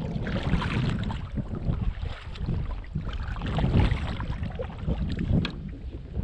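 Kayak paddle strokes splashing in the water: one near the start and another about three to four seconds in. Wind rumbles low on the microphone underneath.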